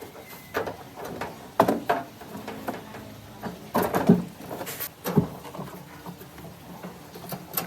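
A series of irregular knocks, clatters and short scrapes from hand work on the washing machine's parts, the loudest knocks about two and four seconds in.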